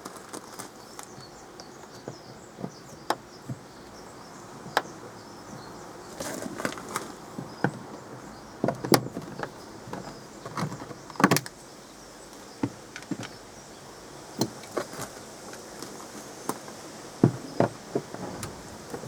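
Irregular clicks, taps and scrapes of screwdrivers working at a car's inside door trim panel, undoing its screws and prying at its plastic clips, with a few louder knocks and rattles along the way.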